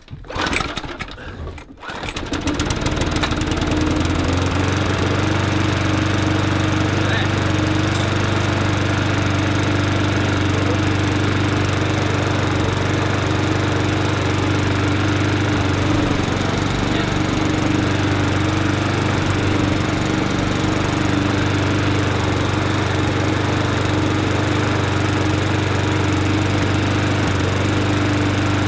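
Mountfield SP470 lawnmower's four-stroke petrol engine pull-started: a short burst of firing, then it catches about two seconds in and runs at a steady speed, running fine, until it cuts off at the end.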